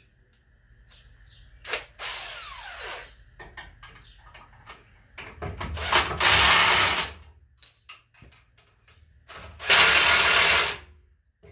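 Hand-held cordless power tool run in three bursts of about a second to a second and a half each, the middle one the loudest, driving bolts and nuts tight on a truck frame's spring mount. Small clicks of tools and hardware come between the runs.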